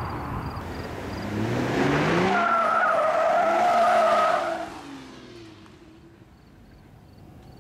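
BMW X3 35i's turbocharged 3.0-litre inline-six rising in pitch as the SUV accelerates toward and past, its tyres squealing loudly for about two seconds as it goes by. The sound then fades as it drives away.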